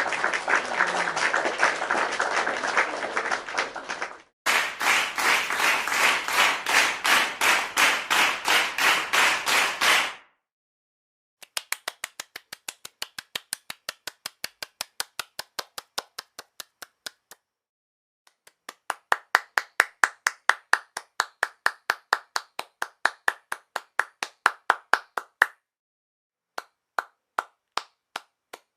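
Hand clapping in several separate takes, one after another with short silent gaps. The first take is dense and fast, like a few people clapping together. The later takes are single runs of steady, quick claps, and a few sparse claps come near the end.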